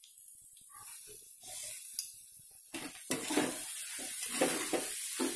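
Sabudana khichdi sizzling in a hot pan while a metal spatula stirs and scrapes it. It starts as a soft hiss and grows louder about three seconds in, with a run of short scraping strokes.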